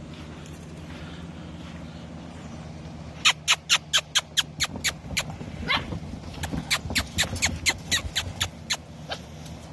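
English coonhound puppies squealing and yipping as they are woken: rapid high-pitched squeaks, about four a second, starting about three seconds in, some falling in pitch.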